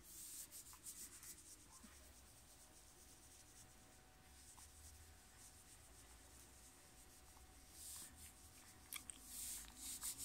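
Faint rubbing of a hand over a baby's cotton clothes and disposable diaper, in short scratchy spells near the start, in the middle and loudest near the end.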